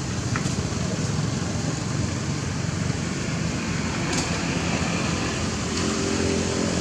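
Steady low rumbling outdoor noise from motorbike traffic, with a faint engine hum coming in about four seconds in and a few light clicks.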